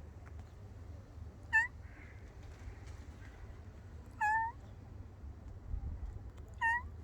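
A domestic cat meowing three times, short high calls a couple of seconds apart, the middle one a little longer.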